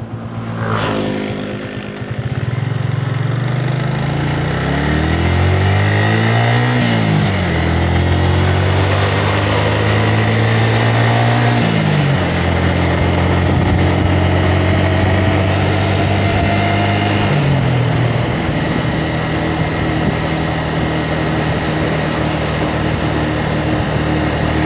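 Yamaha Vixion motorcycle's single-cylinder four-stroke engine accelerating through the gears. Its pitch climbs, then drops at each of three gear changes, and it then runs steadily at speed. The engine note is rough.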